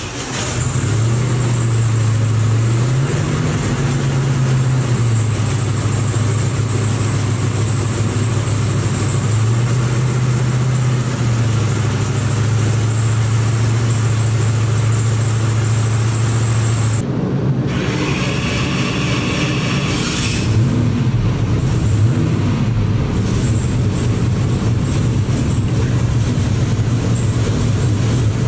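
Freshly built turbocharged SML race engine running on an engine dyno in its first warm-up after start-up, its note stepping up and back down a couple of times. About 17 seconds in the sound turns rougher and less even.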